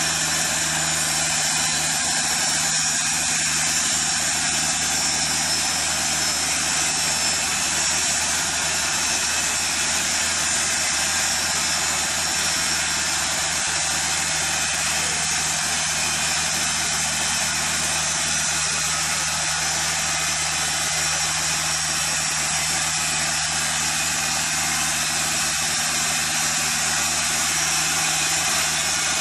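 TimberKing 2000 band sawmill running steadily, its engine under load and the band blade cutting through a stack of Elaeocarpus grandis (blue quandong) boards, with no break in the sound.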